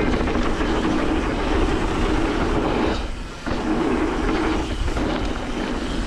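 Mountain bike riding down a dirt flow trail: steady rumble of the tyres rolling over the ground and the bike rattling, which drops away briefly about halfway through.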